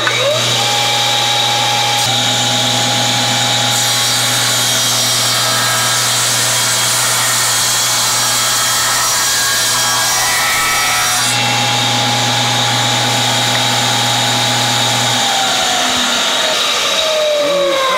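Table saw running as a board is fed along the fence past the blade, trimming its edge straight and square for joining; the cut is loudest for several seconds in the middle. A little past halfway through the last third, the motor is switched off and the blade spins down with a falling whine.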